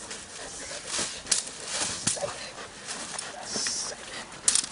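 Scuffle of a Belgian Malinois on the bite against a decoy's padded bite suit, with the rustle of the decoy's streamer-flag stick being waved over the dog. A few sharp cracks, the loudest about a second in and near the end.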